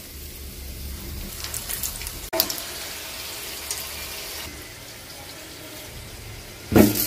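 Oil sizzling steadily as chicken cheese spring rolls fry, with a few short pops, in several short cuts. A single loud knock comes near the end.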